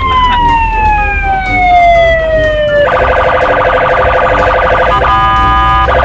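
Police car electronic siren. It opens with one long wail that rises and then slowly falls, and about three seconds in it switches to a rapid pulsing warble. Near the end it holds a steady tone for about a second before pulsing again.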